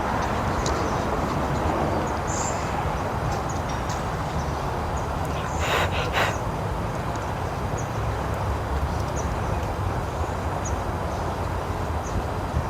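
Outdoor ambience of steady low rumble with short high chirps scattered through, and a brief louder rustle about six seconds in.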